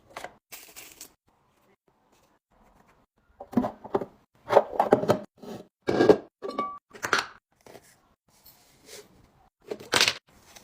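Kitchen handling sounds: plastic containers and food packaging knocked, set down and crinkled in irregular bursts, the busiest stretch a few seconds in and one sharp clack near the end.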